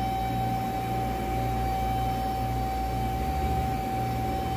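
CNC lathe machinery running steadily: a constant high-pitched whine over a low hum, the hum shifting slightly about three seconds in.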